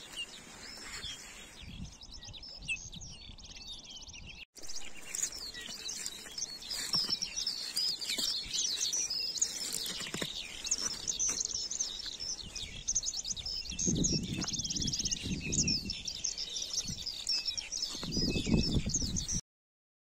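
Small songbirds chirping and trilling: sparse calls at first, then a dense run of high chirps and trills after a brief break about four seconds in. Low rumbles come twice near the end.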